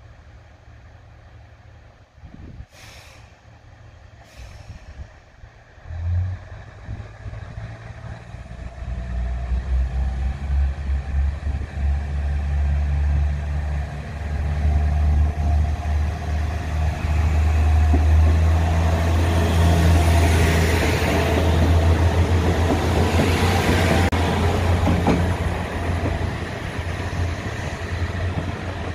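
JR KiHa 110 series diesel railcar pulling out: two short hisses of air, then about six seconds in the diesel engine throttles up to a loud, steady drone. Wheel and rail noise join in as the railcar passes, loudest past the middle and easing a little near the end.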